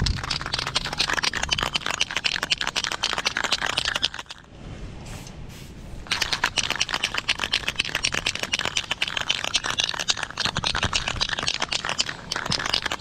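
Aerosol spray paint can being shaken hard, its mixing ball rattling in a fast, even clatter. Two long bouts of shaking, with a short pause a little over 4 seconds in.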